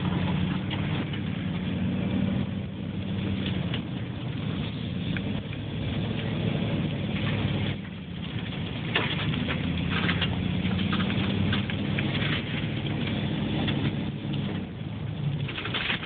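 A car's engine and tyres heard from inside the cabin while driving slowly, a steady low hum that wavers a little in pitch, with scattered crackles over it.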